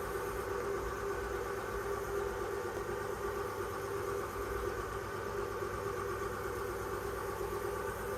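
Mercedes-Benz W465 G-Class running at idle: a steady, unchanging hum over a low rumble.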